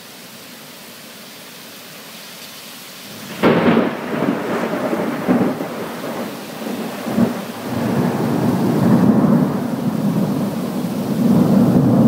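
Steady hiss of a torrential downpour, then about three and a half seconds in a sudden loud thunderclap that rolls on as a long rumble, swelling several times.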